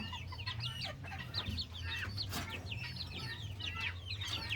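A flock of chickens calling: many short, high, overlapping calls one after another, with a steady low hum underneath.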